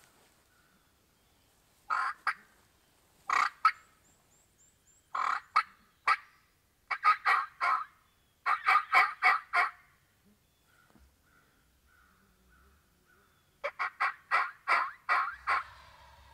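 Wild turkey calling: about six loud runs of quick, evenly spaced notes, some short and some lasting over a second, with pauses between them.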